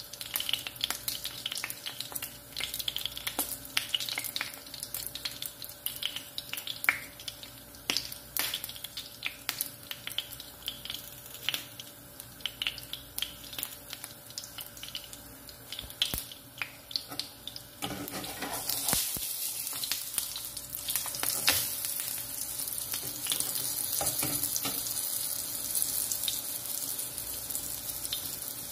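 Pancake batter frying in a nonstick pan, with a steady run of small sizzling crackles. About two-thirds of the way through, a louder steady hiss takes over.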